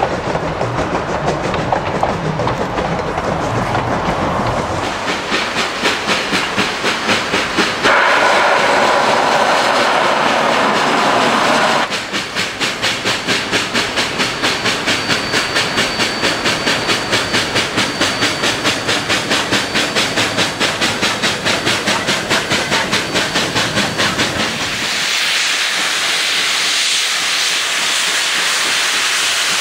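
Narrow-gauge steam locomotive working, its exhaust chuffing steadily at about three beats a second, with a louder noisy stretch about a third of the way in. Near the end the chuffing gives way to a loud steady hiss of escaping steam.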